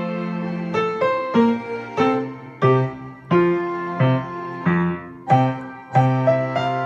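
A minuet played on piano: a moderate-paced line of struck notes and chords over a bass, each note dying away after it is struck.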